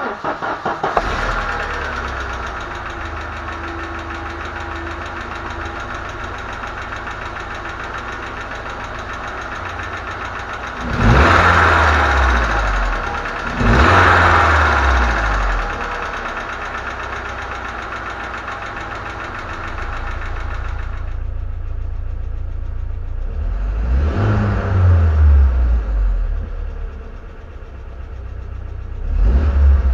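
ZMZ-409 four-cylinder petrol engine idling with a rhythmic ticking knock from a hydraulic valve lifter, the fault the owner is about to strip the head to find. It is revved briefly twice around 11 and 14 seconds in, and again a few times after about 24 seconds.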